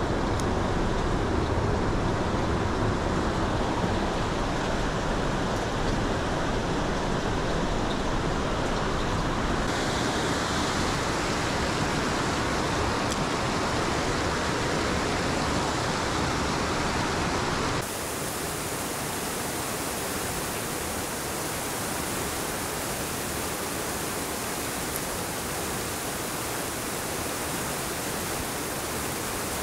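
Steady rushing of river rapids and white water below a dam. It changes abruptly twice, about ten seconds in and again about eighteen seconds in, and is a little quieter after the second change.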